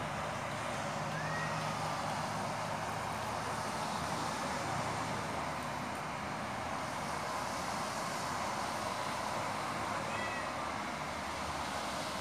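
Street cat yowling outside over a steady background hiss.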